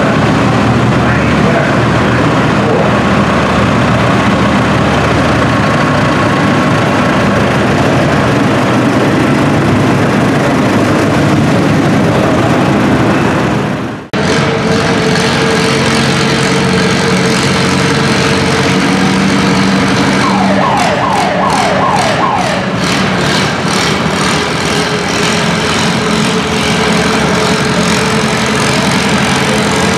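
Antique pulling tractor engines and the weight-transfer sled running loud and steady. The sound cuts out briefly about halfway. A few quick falling chirps come about two-thirds of the way through.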